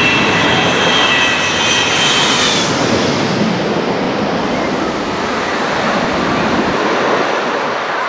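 Twin-engine jet airliner passing low overhead on final approach to land: a high engine whine over the jet noise fades out about three seconds in as it passes over, leaving a steady rushing rumble as it moves away toward the runway.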